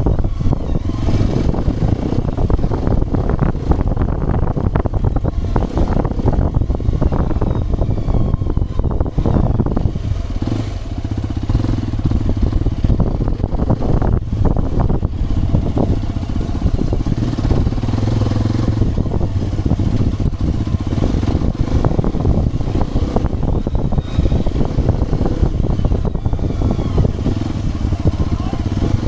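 Hero XPulse 210 motorcycle's single-cylinder engine running as it is ridden over rough off-road ground, with knocks and rattles from the bumps throughout.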